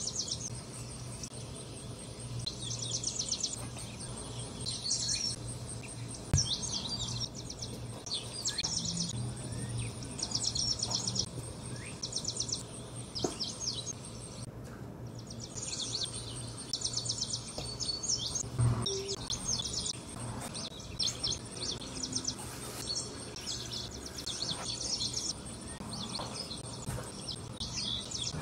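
Birds chirping, in repeated short high trills, over a faint steady high-pitched tone and a low hum.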